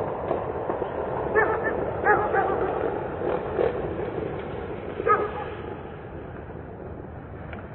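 A dog barking in a few short volleys, the loudest about one and a half, two and five seconds in, over a steady hum of distant traffic that eases off near the end.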